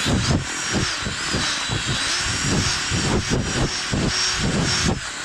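Strong wind buffeting the microphone in irregular gusts, with a steady rushing hiss and a faint thin whistle over it.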